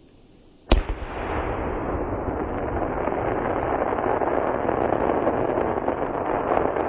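4-inch titanium crackling chrysanthemum-to-palm aerial firework shell: one sharp, loud boom of the burst less than a second in, followed at once by dense, loud crackling from the crackle stars that keeps building.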